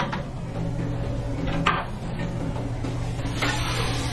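Kitchen work sounds over a steady low machine hum: a sharp clack about a second and a half in, and a short clattering rattle near the end.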